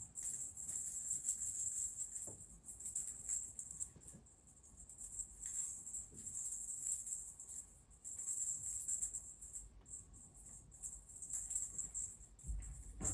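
Background music carried by a high, hissing shaker-style percussion rhythm that swells and fades in phrases of about two seconds.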